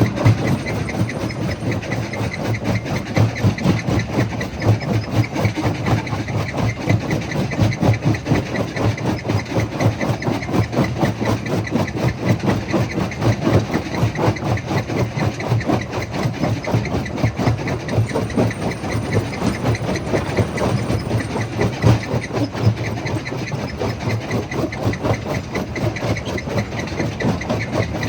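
Jaw crusher running: a steady, heavy machine rumble with a dense, rapid clatter throughout.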